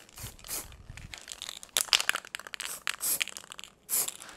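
Aerosol can of cold galvanising zinc spray hissing in several short bursts, sealing the freshly cut edge of steel trunking against rust.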